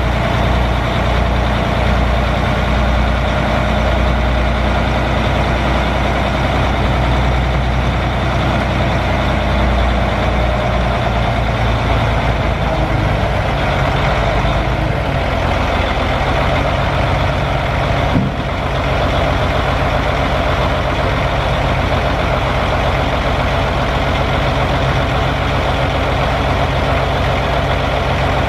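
Sterling dump truck's Caterpillar C13 inline-six turbo diesel running steadily. Roughly twelve to fifteen seconds in its note shifts and the deepest part of the sound falls away. A single sharp clack comes about eighteen seconds in.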